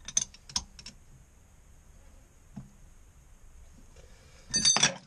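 Open-end wrench working a bolt on a marine transmission's output coupler flange as it is loosened: a few light metallic clicks, then a louder burst of metal clatter near the end.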